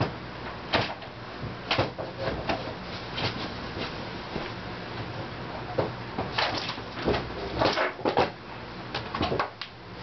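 Old hard drive running on a table: irregular sharp clicks and knocks over a steady low hum, with a cluster of louder knocks in the second half.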